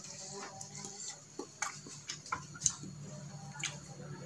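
Close-up eating sounds: irregular short clicks and smacks from chewing bakso, with a spoon scooping in a plastic bowl, over a faint low hum.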